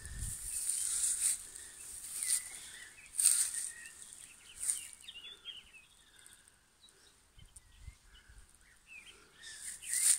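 Outdoor garden ambience: small birds chirping faintly in short calls through the second half, with several brief bursts of hissing noise, the loudest near the start and at the end.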